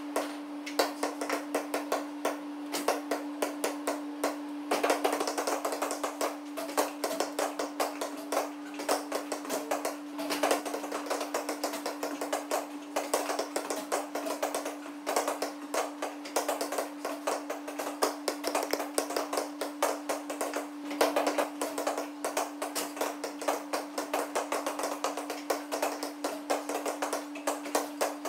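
Music with a quick tapping beat, over a steady hum.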